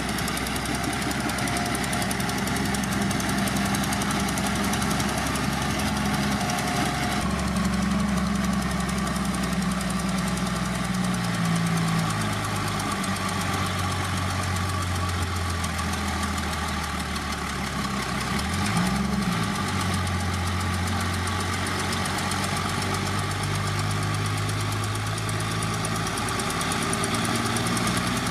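Diesel engine of heavy earthmoving machinery running under changing load, its pitch stepping up and down several times, with a quick rev up and back down about 19 seconds in.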